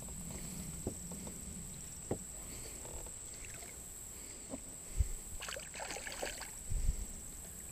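A hooked bass splashing and thrashing at the water's surface beside a bass boat as it is played in, mostly between about five and a half and seven seconds in, with a few faint knocks before it and a steady faint high whine.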